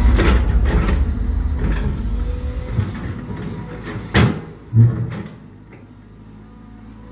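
Heavy construction machinery with a low engine rumble that fades away. About four seconds in there is a sharp metallic clank, and a heavy thump follows half a second later. After that a steady low engine hum goes on.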